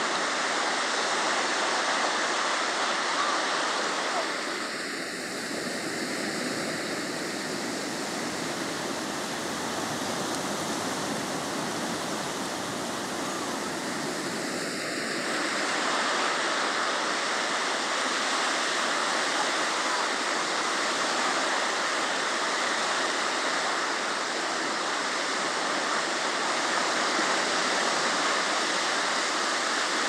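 Small Mediterranean waves breaking and washing in the shallows: a steady rush of surf that dips slightly about four seconds in and comes back up around fifteen seconds.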